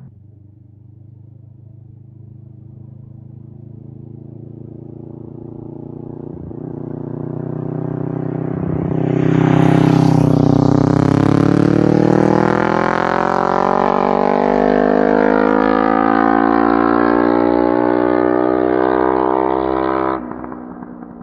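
Kawasaki ER-5 parallel-twin engine through a shortened stock muffler, getting steadily louder at a low note, then running loud with its pitch climbing steadily as it revs up for about ten seconds. Near the end the sound drops away suddenly.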